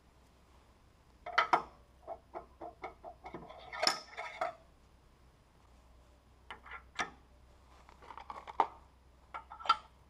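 Metal clinks and knocks as a steel pen mandrel is taken out of a wood lathe's headstock and pen-press fittings are set in place, in two irregular clusters of light strikes.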